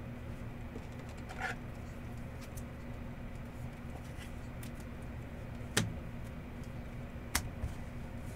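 Sports trading cards being handled at a table: a brief soft rustle, then two sharp clicks a second and a half apart, over a steady low hum.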